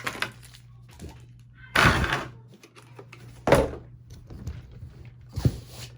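Three short bumps and rustles from a toy remote-control race car being handled and set down, about two seconds in, midway, and near the end.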